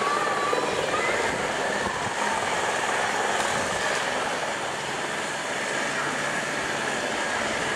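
Aerospatiale AS355N Twin Ecureuil twin-turbine helicopter flying overhead: steady engine and rotor noise with a fast, even rotor beat, holding level throughout.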